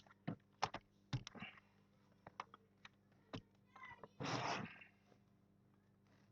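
Light clicks and taps from handling the laptop's internals while its battery is being connected, followed by a short, noisy burst lasting about half a second, about four seconds in.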